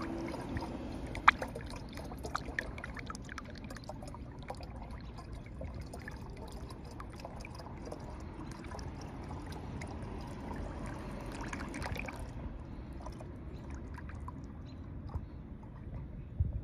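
Yellow antifreeze concentrate pouring in a steady stream from a jug through a plastic funnel into a plastic gallon jug of distilled water. There is one sharp click about a second in and a low thump near the end.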